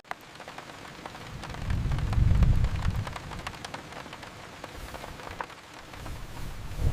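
Steady rain falling with scattered drop patter, and a low rumble of thunder swelling about two seconds in.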